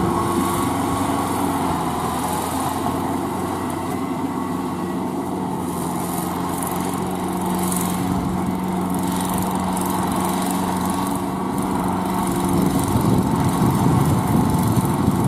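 Kubota L4508VN tractor's diesel engine running steadily under load as it drives a rear rotary tiller through a flooded paddy, getting a little louder near the end.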